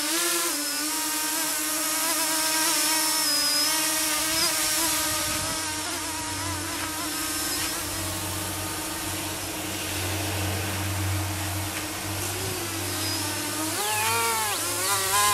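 Mini tricopter's three electric motors and propellers whining steadily in flight, loaded with about 60 grams of FPV gear. The pitch wavers with the throttle and shifts more near the end, as the craft is grabbed by hand.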